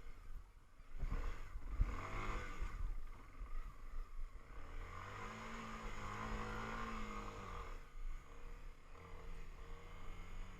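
A vehicle engine revving: it climbs in pitch about a second in, holds a steady higher note for a few seconds, then drops back to a lower note near the end.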